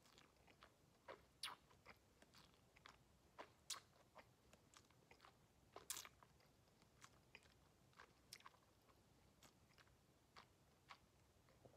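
Faint, irregular wet clicks and smacks of lips and tongue as a sip of whisky is held and chewed in the mouth while tasting.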